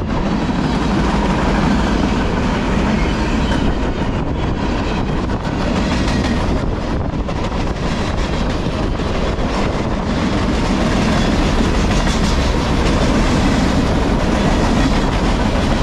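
Freight cars of a CSX manifest train rolling past close by at speed: a loud, steady noise of steel wheels running on the rails.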